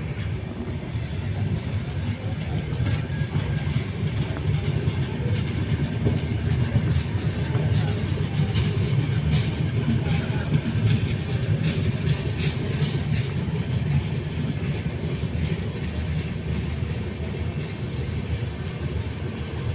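Passenger train of Indian Railways LHB coaches running past, with a steady rumble of wheels on the rails and many quick clacks over the rail joints, thickest in the middle.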